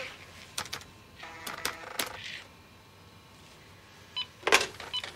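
Push-button desk telephone being dialled: a string of key clicks and short electronic beeps, with a louder clatter about four and a half seconds in.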